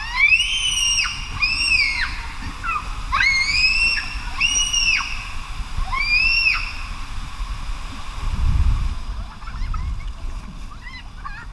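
A child squealing in about five high-pitched cries that rise and then fall, each half a second to a second long, over water sloshing under an inner tube sliding down a water slide. The water noise swells about two-thirds of the way through, after the cries stop.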